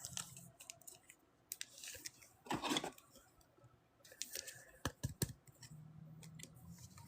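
Trading cards and foil pack wrappers being handled: scattered soft rustles and clicks, a louder rustle about two and a half seconds in, and a few sharp clicks near five seconds.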